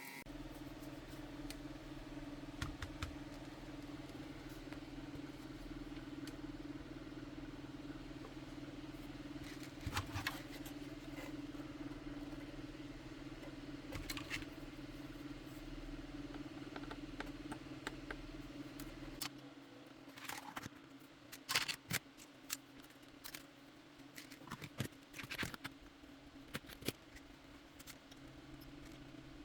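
A steady low electrical hum that drops away about two-thirds of the way through, with scattered clicks, scrapes and clatter of small hard objects being handled, more frequent after the hum stops.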